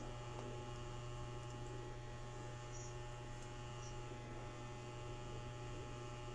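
Steady low electrical hum, like mains hum, with nothing else of note.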